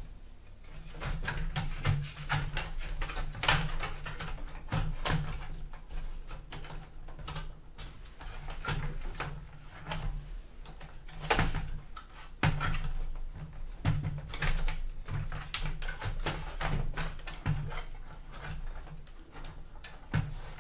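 Plastic palm rest of a Dell laptop being lowered onto the base and pressed down by hand, with many irregular clicks and knocks of plastic as its hooked tabs are pushed to snap in. The palm rest does not seat easily.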